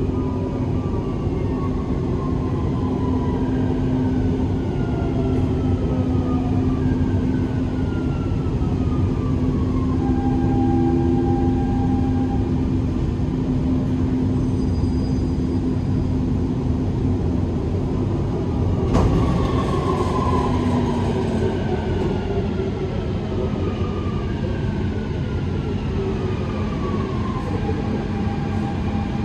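Dubai Metro train heard from inside the carriage as it comes into a station: a steady running rumble under repeated falling electric whines from the drive as it slows, with a sudden thump about two-thirds of the way through.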